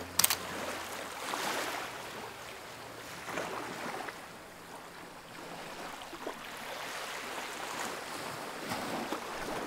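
Wind blowing across a sailboat's deck and over the microphone, with the sea washing around the boat at anchor. A sharp click comes right at the start.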